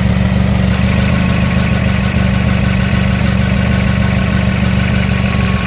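Toyota Camry engine idling steadily with its crankshaft position sensor unplugged. The engine runs this way but stalls once the sensor is connected, which the mechanic puts down to a short in the sensor wiring or a faulty engine computer.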